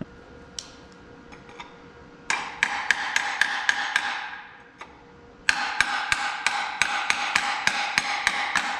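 A hammer strikes metal on an Oliver 1600 tractor engine's rear cover to work it loose from its dowel pins. There are two runs of quick blows, about four a second, each one ringing; the second run starts a little past halfway.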